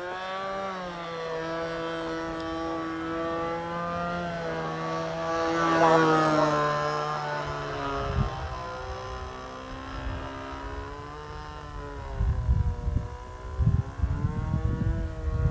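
Engine of an RC Phoenix Edge 540 model aerobatic plane fitted with a can muffler, flying past: a steady engine note whose pitch rises and falls as the plane manoeuvres, loudest about six seconds in. Low, uneven rumbling thumps come in over the last few seconds.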